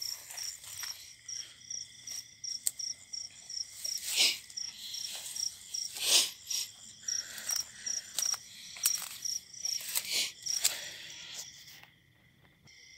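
Footsteps crunching and rustling through dry grass and rice stubble, loudest about 4 and 6 seconds in, over night insects chirping in a steady pulse of about two or three chirps a second with a high trill beneath. The chirping stops shortly before the end.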